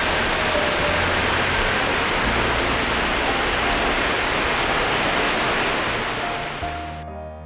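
Steady rushing of a large waterfall, a dense even noise, fading over the last second or so and cutting off as piano music comes in near the end.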